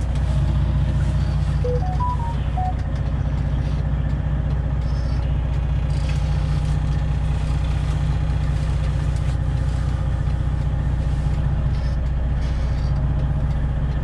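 Freightliner Classic XL semi truck's Detroit Diesel 12.7-litre engine running steadily, heard from inside the cab. A short chime of a few rising and falling notes sounds about two seconds in.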